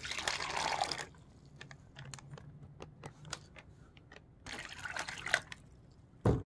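Water pouring from a glass into a plastic MRE hot beverage bag for about a second. This is followed by scattered crinkling clicks of the plastic bag as it is handled, another brief rustle a little past the middle, and a short knock just before the sound cuts off.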